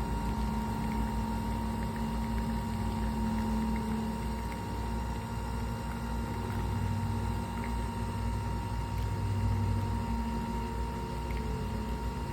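Nespresso Vertuo Plus capsule machine running a brew cycle for a double espresso: a steady mechanical hum of the pump and the spinning capsule, with coffee running into the cup.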